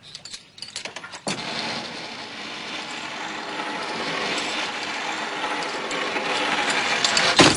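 A pulley running along an overhead rope as a cadet slides down from a tower: a few clicks, then about a second in a continuous rattling whir that builds slightly and ends with a loud knock near the end.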